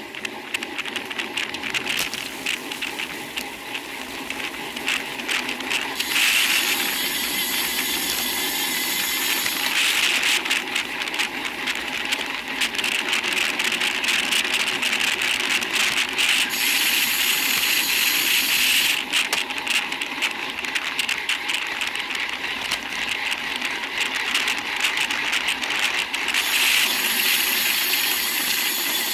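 Wind and road noise on a bicycle-mounted Cycliq safety camera riding at race speed in a bunch, with constant rattling from the camera and its mount over the tarmac. A brighter hiss swells and fades three times.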